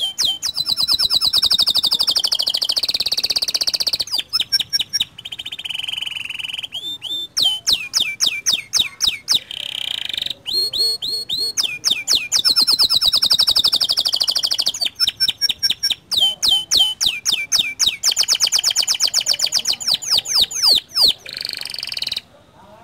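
Local canary singing a long, loud song of fast trills and rapid repeated notes, in phrases with short breaks, stopping shortly before the end.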